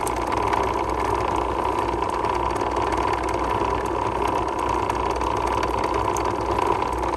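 Steady mechanical hum of a running motor at an even level, with a low drone and a higher steady whine.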